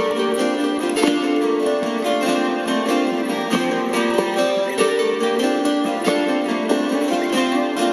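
Acoustic guitar played live over several layered, looped guitar parts, building a dense, sustained instrumental texture with frequent plucked notes.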